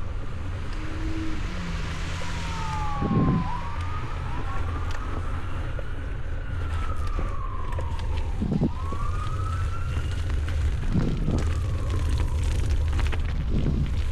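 Emergency vehicle siren wailing, its pitch sweeping slowly up and down, over a steady low rumble.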